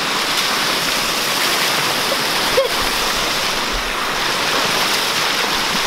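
Creek water pouring over a low concrete weir into a pool: a steady rushing.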